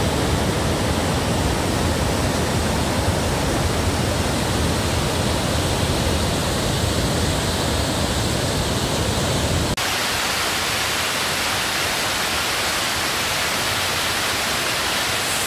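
Waterfall and white-water torrent rushing loudly and steadily. About ten seconds in the sound cuts abruptly to a thinner, steadier hiss with less low rumble.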